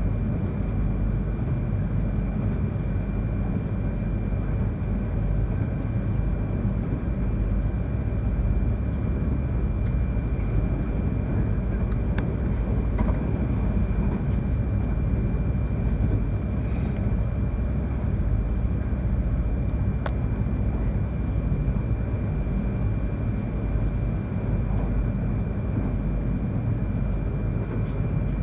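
Inside the cabin of an E3 series Yamagata Shinkansen train running steadily along the line: a continuous low rumble with a faint steady high whine, and a few light clicks partway through.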